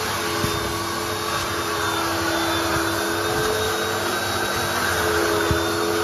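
Ultra Steam carpet and upholstery cleaner's vacuum motors running with a steady whine and rush of suction, as its extraction wand is drawn across a carpet car floor mat.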